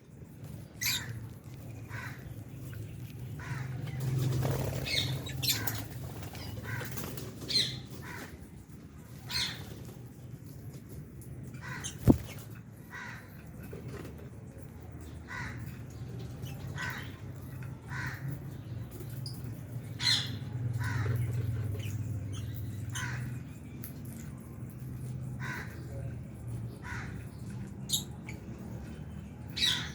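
Aviary lovebirds calling: short shrill chirps and squawks, roughly one a second, over a steady low hum, with a single sharp knock about twelve seconds in.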